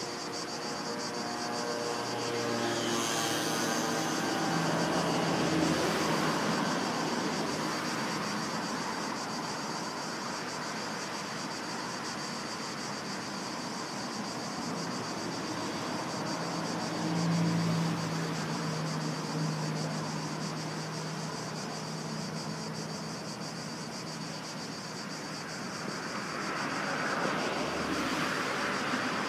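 Motor vehicles passing on the road bridge, their engine tones swelling and fading a few times, over a steady high drone of insects.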